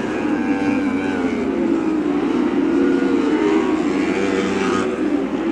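Lightning sprint cars racing, their high-revving motorcycle engines running hard together, the engine note rising and falling as they drive through the turns.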